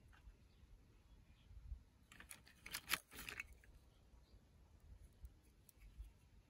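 Hands handling small plastic toy food pieces and modelling clay: a short flurry of light clicks and rustles about two to three seconds in, with near silence around it.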